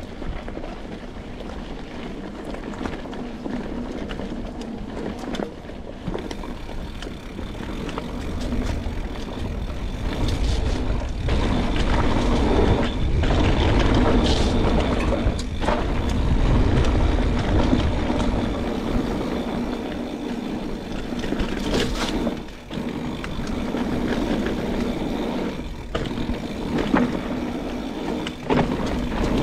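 Mountain bike riding down a rough trail: a steady rattling and rumbling of tyres, chain and frame over the ground, louder from about ten seconds in.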